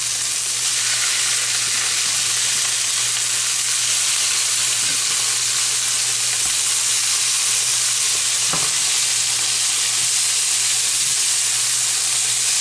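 Canned salmon with onions and garlic sizzling steadily in oil in a frying pan, left to caramelize and crisp on the bottom. One light knock partway through.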